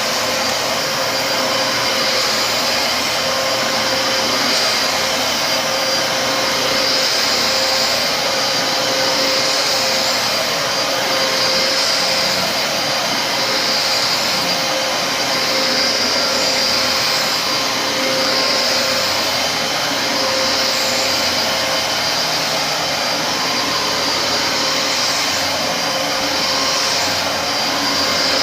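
Dyson DC33 upright vacuum cleaner running steadily, with a constant whine over its airflow noise.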